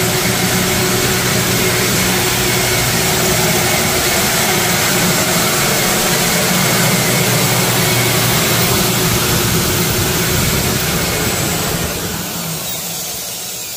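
Homemade air flow bench's six electric motors running together, a loud steady rushing whir as they pull air through a cold air intake under test. Near the end they are shut off and wind down, the sound fading with a falling whine.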